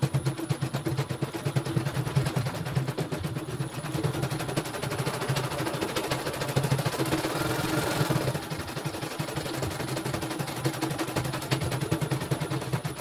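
CNY computerized embroidery machine stitching in the hoop: a fast, continuous clatter of needle strokes over a steady motor hum, played back sped up.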